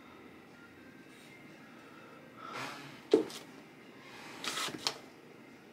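Decoupaged wooden bunny cutouts being handled on a work table: one sharp knock about three seconds in, with short rustling noises just before it and again about a second later.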